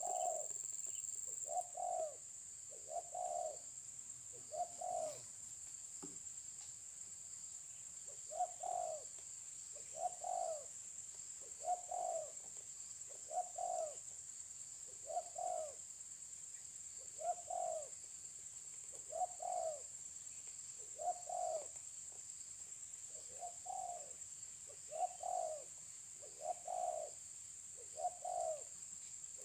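Spotted dove (terkukur) cooing over and over, one short low coo about every one to two seconds, with a few longer gaps. Behind it runs a steady high-pitched insect drone.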